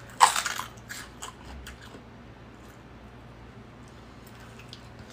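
A crisp bite snapping through a raw green plant stalk about a quarter-second in, followed by a few smaller crunches of chewing that fade within about two seconds.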